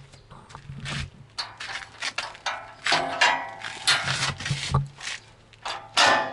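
Steel swing-out bumper arm and its latch being worked: a rapid, irregular run of metal clanks and clicks, several ringing briefly, with the loudest knocks about three seconds in and near the end.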